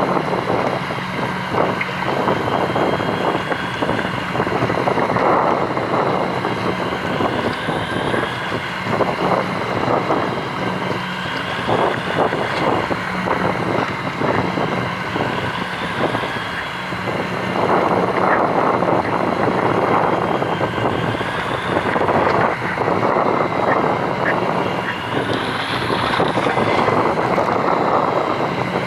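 Fishing boat's engine running steadily, a continuous drone under a noisy wash of wind and water that swells and eases every few seconds.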